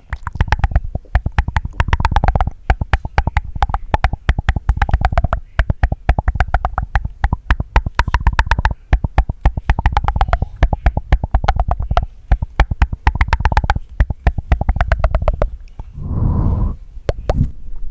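Close-miked ASMR mouth sounds: rapid wet tongue clicks, about ten a second, in runs with brief pauses, and one longer mouth sound near the end.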